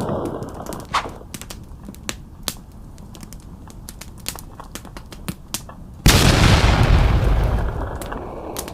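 A sudden loud boom, like an explosion or eruption, about six seconds in that fades away over about two seconds, over a scattered crackle of small sharp pops.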